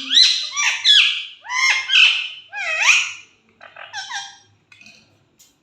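Green parrot squawking in a series of harsh calls: about five loud squawks in the first three seconds, then softer, sparser calls that fade out.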